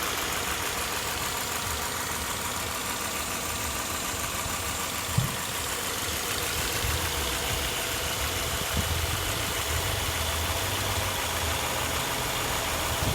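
Subaru FB25 2.5-litre flat-four engine idling with a ticking clatter. A single sharp knock stands out about five seconds in.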